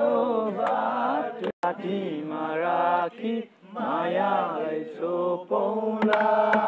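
A man singing a slow Nepali song with long, sliding notes and no clear words, holding one long note near the end.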